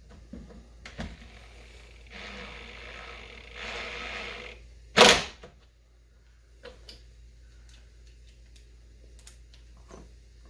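A drill-driver runs for about two and a half seconds, driving a wood screw through a leg into the workbench top, and pulls harder near the end. Then a single sharp knock, followed by a few light handling clicks.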